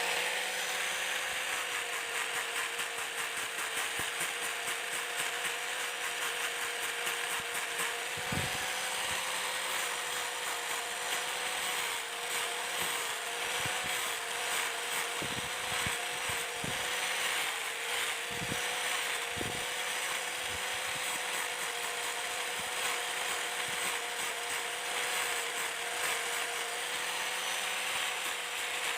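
A small power tool running steadily with a constant whine, with a few short knocks partway through as it works the material.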